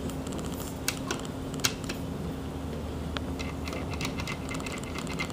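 Steady low mechanical hum, with a few sharp clicks and, from about three and a half seconds in, a rapid run of light ticks, about five a second.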